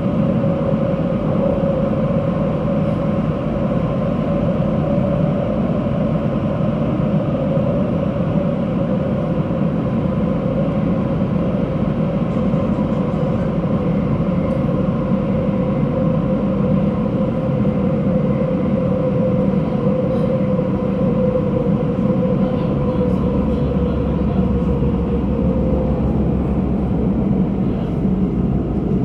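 Bombardier C951 metro train running through a tunnel: a steady rumble of wheels and running noise with a held whine, which sinks slowly in pitch over the last few seconds.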